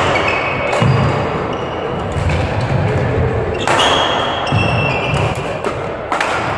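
Badminton rally in a sports hall: sharp racket strikes on the shuttlecock, about three in all, each ringing on briefly in the hall. Short high shoe squeaks on the court floor and dull footfalls run between the strikes.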